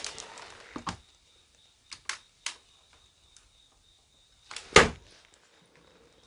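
Hands rummaging through clutter in a plastic crate: rustling at first, a few light clicks, then one loud knock about five seconds in.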